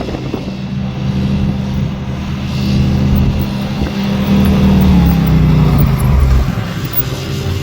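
Quad (ATV) engine running under throttle, its pitch steady and then falling about five seconds in as it eases off.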